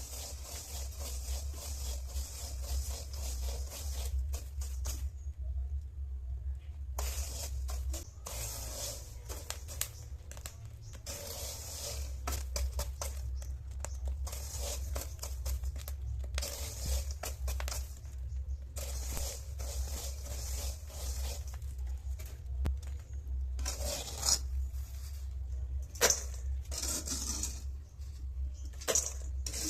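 Chickpeas frying in a pan and being stirred: a hissing sizzle, with a spatula scraping and knocking against the pan. A steady low hum runs underneath.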